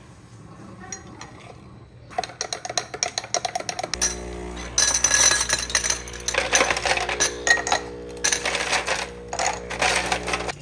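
A metal straw clinking against a glass as coffee is stirred, then ice cubes clinking as they drop into glass cups. A steady hum runs underneath from about four seconds in.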